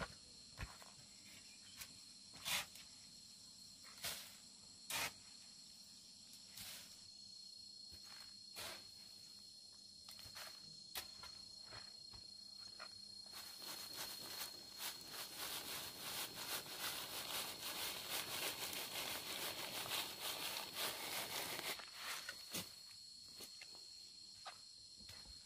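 Gravelly soil rattling as it is shaken through a woven bamboo sieve, a dense patter of grit for about eight seconds from around the middle, with scattered knocks of pebbles before it. A steady high insect buzz runs underneath.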